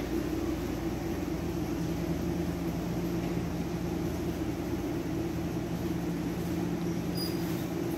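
Steady low hum over a soft hiss: room tone, with a faint brief click about seven seconds in.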